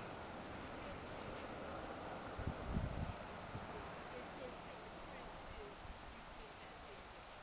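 Faint, steady chorus of crickets and other insects. A brief low rumble comes about two and a half seconds in.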